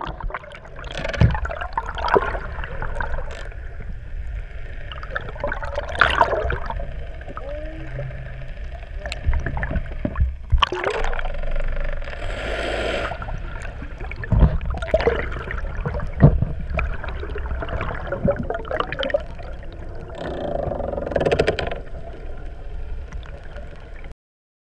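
Sea water sloshing and gurgling around a GoPro held just under the surface, heard muffled through its waterproof housing, with irregular sharp knocks and splashes. The sound cuts off suddenly near the end.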